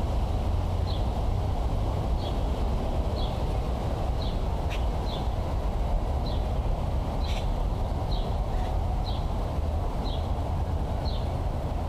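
Wind buffeting the microphone as a steady low rumble, with a bird giving a short, falling chirp about once a second. Two sharp clicks come from hands working a baitcasting reel.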